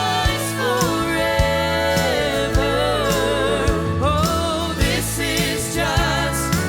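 Southern gospel song: sung voices holding long, wavering notes over a band with a steady drum beat.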